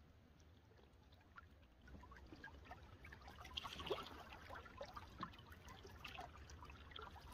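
Faint water drips and trickles around a canoe on still swamp water, scattered small splashes and ticks growing busier from about two seconds in, over a low steady rumble.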